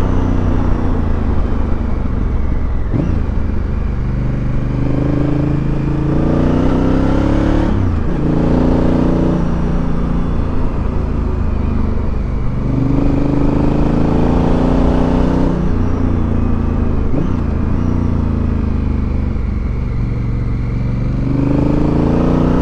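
Honda Africa Twin Adventure's parallel-twin engine pulling hard on a winding road. The revs climb and fall, and the pitch drops suddenly several times as the rider shifts and rolls off the throttle.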